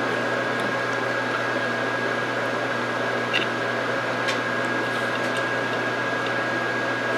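Steady background hum and hiss with a constant high whine, from an unseen appliance or fan. Two faint clicks about three and four seconds in, a metal fork touching a plate.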